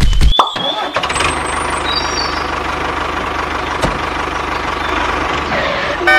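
Tractor engine sound effect dubbed over a toy tractor: a loud chugging stops abruptly about half a second in. The engine then idles steadily with an even low throb.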